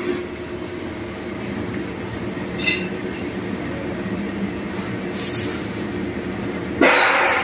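Steady mechanical hum of a CNC machine running, with a short high-pitched squeak about two and a half seconds in and a loud, brief rush of noise with a rising whine near the end.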